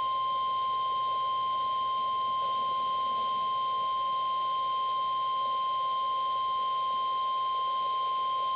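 Weather Radio Canada 1050 Hz warning alarm tone: a single steady, unbroken high-pitched beep, sent as the monthly test of the weather radio tone alarm feature.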